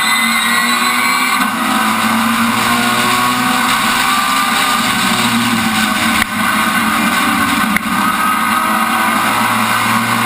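Rallycross car's engine at high revs, heard from onboard the car itself. Its pitch climbs over the first second or so, then runs high and steady, with two brief drops in level about six and eight seconds in.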